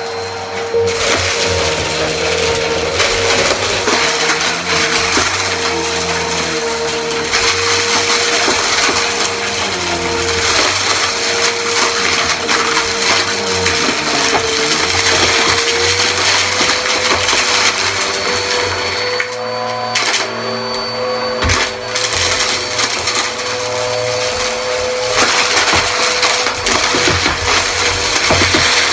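Bagless upright vacuum cleaner running with a steady motor whine, its brushroll crunching and rattling as it sucks up confetti, sequins, beads and glitter from a rug. The crunching eases briefly about twenty seconds in.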